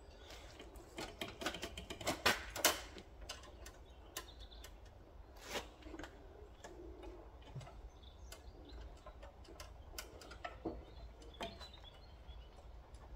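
Irregular small metallic clicks and taps from a steel brake pipe and its fitting being handled, with a few louder clicks about two seconds in and again about five seconds in.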